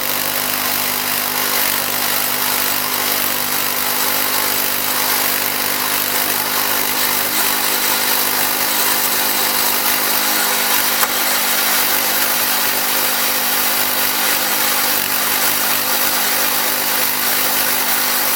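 Wood-Mizer LX25 portable band sawmill running steadily, its engine humming under the hiss of the band blade cutting through a white oak log.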